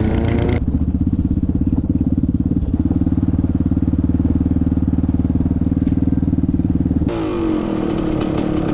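Off-road engines heard through onboard cameras. A Yamaha Raptor 660 quad's single-cylinder engine runs steadily and pulsing at speed. After a cut near the end, a KTM two-stroke dirtbike engine's pitch falls as it comes off the throttle.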